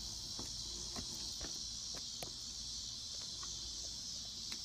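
A steady, high-pitched insect chorus, with a few faint light clicks scattered through it.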